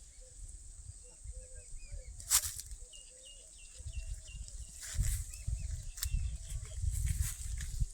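Outdoor ambience: faint, repeated short bird chirps over a low, uneven wind rumble. A few sharp clicks cut through, the loudest about two and a half seconds in.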